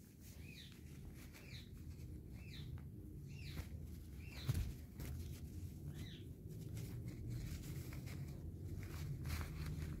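Indian ringneck parakeet giving a string of short chirps, roughly one a second, while being scratched on a lap. Low rubbing and handling noise runs underneath, with one thump about four and a half seconds in.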